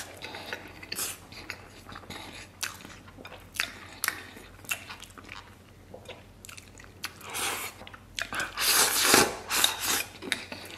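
Close-miked chewing of rice mixed with braised pig-trotter sauce, with sharp clicks of chopsticks against a ceramic bowl. Near the end the sound grows louder for a couple of seconds as rice is shovelled from the bowl's rim into the mouth.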